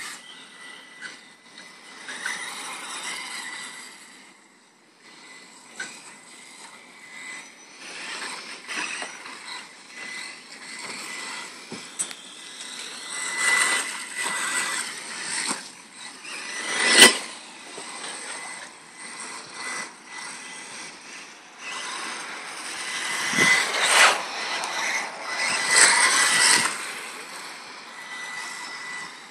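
Electric 1/10-scale RC cars, an Associated SC10 4x4 short-course truck and a Durango DEX410 buggy, running on an artificial-turf track: motor and gear whine with tyre noise that swells as the cars pass close. About 17 seconds in there is one sharp knock.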